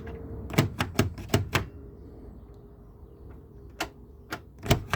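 Sharp metallic clicks from a Tibbe lock-pick tool being worked in a Ford Tibbe door lock: a quick run of about six clicks about a second in, then a few scattered clicks near the end.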